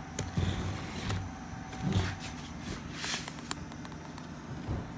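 Handling noise from a MiniDV camcorder being picked up and moved about, with scattered clicks and dull knocks of plastic against the table, over a steady low hum.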